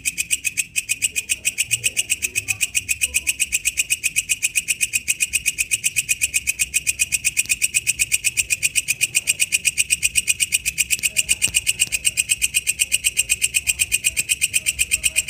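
Walang kecek katydid calling: a steady, even run of sharp, high-pitched chirps, about six a second.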